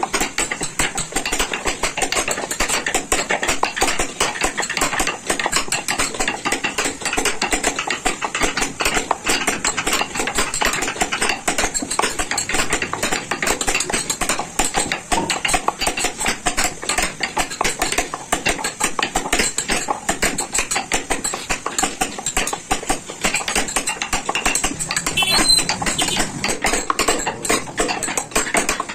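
Small hammer tapping a steel chisel into wood in quick, steady strokes, a continuous run of many sharp taps a second as a pattern is carved.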